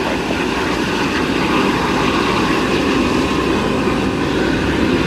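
Jet airliner engines running: a loud, steady rushing noise with faint steady whine tones above it.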